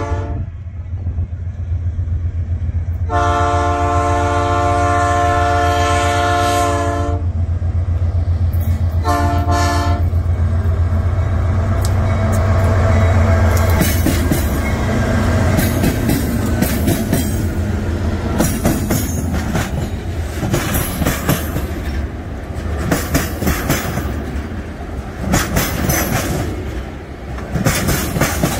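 Train passing close by, sounding its horn: one long blast about three seconds in and a short one about nine seconds in. The locomotive's low rumble is loudest around thirteen seconds, then the wagons follow with the rhythmic clickety-clack of wheels over the rail joints.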